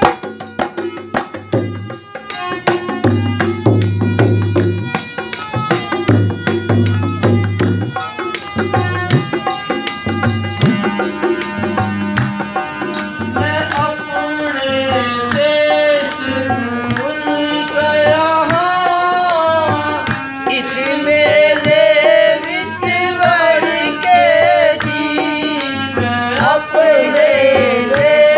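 Devotional music: a hand drum keeps a steady beat under jingling rattle percussion, and a voice begins singing about halfway in, in long wavering melodic lines.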